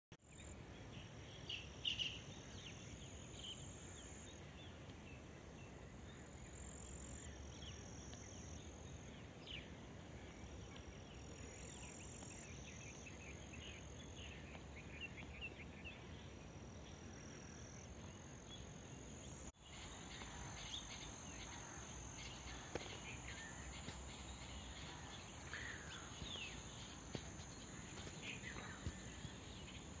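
A faint outdoor chorus of insects, likely crickets, trilling in a steady high band, with short bird chirps scattered throughout over a low background hiss. The chorus cuts out briefly about two-thirds of the way in, then comes back steadier.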